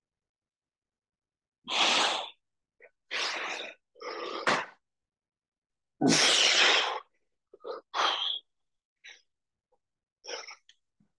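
A man's hard, forceful breaths from exertion while lifting dumbbells: about six breathy puffs at uneven intervals, with silence between, and a brief click about halfway through.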